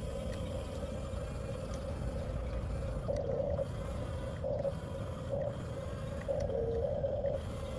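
Electric drive motors and gearboxes of a 1/14 scale Huina RC bulldozer whining steadily. The whine surges louder four times in short pushes, the last and longest one dipping slightly in pitch as the motor takes load.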